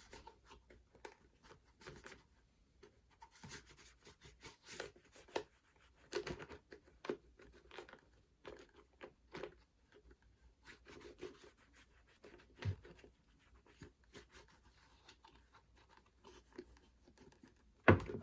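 Leather conditioner being rubbed into a leather boot by hand: soft, irregular scratchy rubbing and small handling clicks, with a sharper knock near the end.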